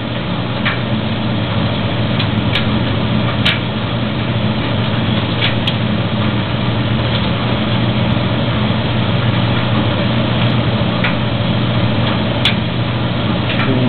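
Maytag DG608 gas dryer running with its gas burner lit: a steady hum over a rushing noise, with a few sharp clicks now and then.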